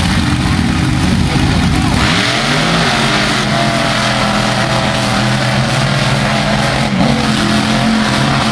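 Two monster trucks' engines running at the line, then revving hard as they launch side by side in a drag race about two seconds in, and staying at full throttle.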